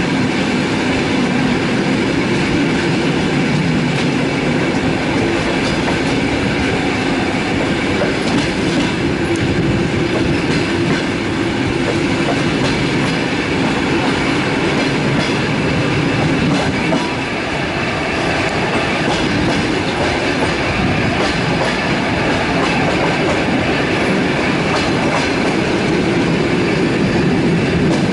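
Passenger train running at speed, heard from on board: a steady rumble and rush of wheels on the rails with scattered clicks from rail joints.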